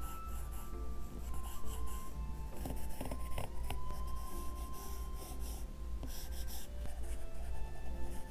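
Apple Pencil tip scratching across an iPad Pro's paper-texture screen film in repeated short sketching strokes, over soft background music.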